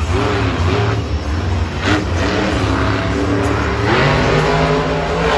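Monster truck's supercharged V8 engine revving hard and repeatedly, its pitch rising and falling over a steady low rumble, with louder surges about two and four seconds in.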